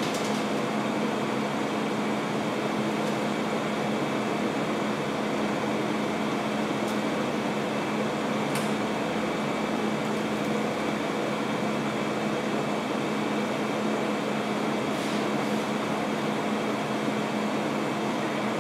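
Steady droning hum with a constant low tone and no change in level, with a couple of faint ticks about halfway through.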